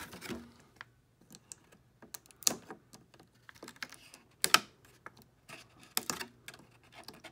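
Irregular clicks and crackles of a clear plastic packaging tray being handled, with two louder snaps about two seconds apart as small doll accessories are cut free with nippers.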